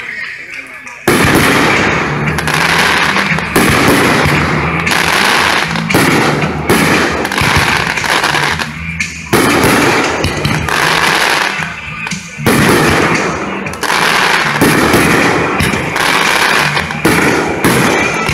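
Aerial fireworks bursting in quick succession: a loud volley starts about a second in, with fresh bursts every second or two. Music plays throughout.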